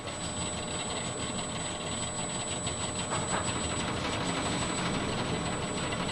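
Steady machine noise, an even rushing hum with a faint high whine held throughout.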